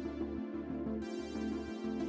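Electronic background music with a synthesizer and a steady bass pulse.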